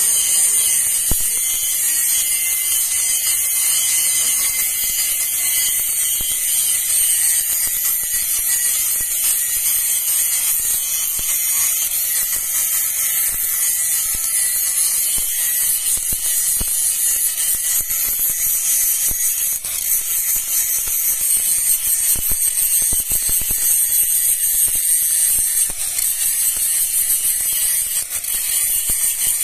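Shielded metal arc (stick) welding with a 2.5 mm E6013 electrode: the arc keeps up a steady high crackling hiss as the first run is laid around the inside of a flange joint on a galvanized pipe.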